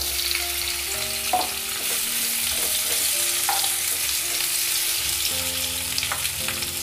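Boiled baby potatoes sizzling as they drop into hot oil in a kadhai and are stirred with a spatula, a steady frying hiss with a few sharp clicks of the spatula against the pan.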